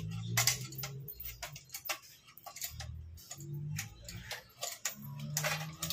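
Manual chain hoist clicking, with irregular light metallic ticks of its ratchet and chain, as its hand chain is pulled while it carries an engine.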